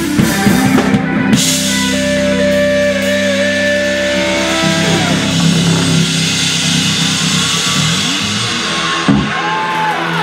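Live band with keyboards, electric guitar, bass and drums playing long held chords over a ringing cymbal wash.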